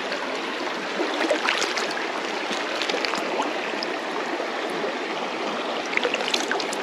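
Shallow river water running and babbling over rocks, with small splashes and drips as a plastic bag is dipped into the water and lifted out.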